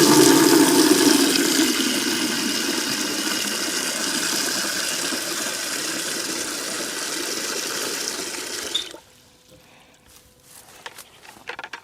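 Water running hard into a container as it is filled for a dog to drink, slowly getting quieter, then shut off abruptly about nine seconds in.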